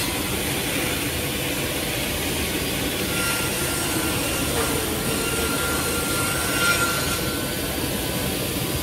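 Woodmaster WMS-300 sliding table panel saw running, its circular blade cutting a wooden panel as the carriage is pushed through. Steady machine noise, with a faint thin whine through the middle of the cut.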